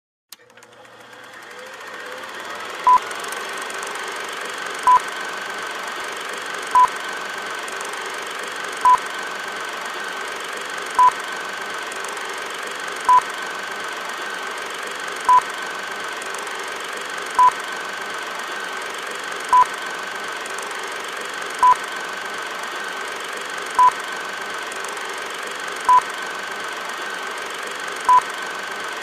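Steady electronic drone with a high held tone, fading in over the first few seconds, and a short high beep repeating evenly about every two seconds, thirteen times in all.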